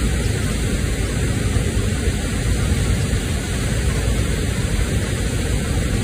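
A large waterfall rushing steadily, a loud, even sound of falling water with a deep low end.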